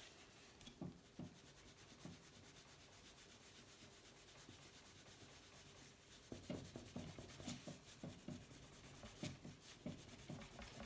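Faint rubbing of a polishing cloth with Autosol metal polish on the painted body of a small die-cast toy car, near silent at first, then irregular short rubbing strokes from about six seconds in.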